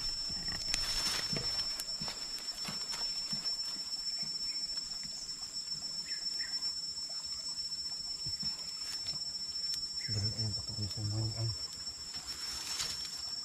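Insects, crickets or cicadas, droning steadily on two high pitched tones, with scattered faint clicks. A short low voice sounds about ten seconds in.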